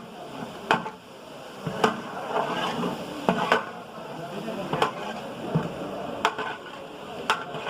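A ladle scraping and knocking against a large cooking pot as a tomato, onion and ginger-garlic paste masala is stirred and fried in oil. There are sharp knocks about once a second over the scraping.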